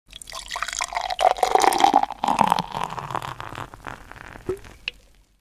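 Liquid pouring and splashing, loudest over the first two seconds and then fading away, with two short clicks near the end.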